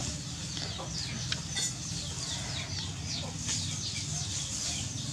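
Birds chirping continuously: many short, high, falling chirps one after another, over a low steady hum.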